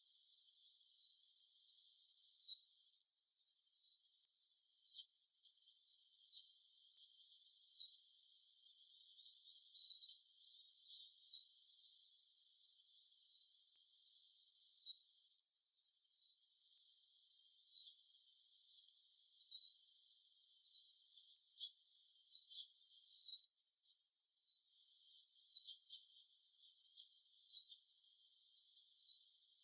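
Warbling white-eye (Japanese white-eye) calling: a single short, high note given over and over, every second or so, each note sliding down in pitch.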